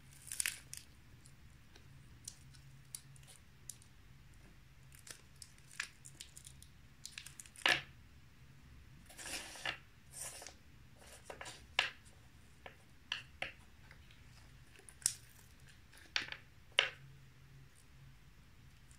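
Knife cutting Mamba chewy fruit candies: irregular sharp taps and short sticky slicing scrapes, with two longer drawn-out cuts around the middle.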